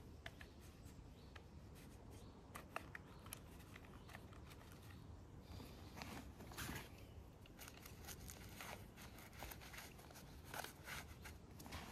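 Faint rustling of clothing and camping kit being handled at a rucksack, with scattered small clicks and a few short scuffs.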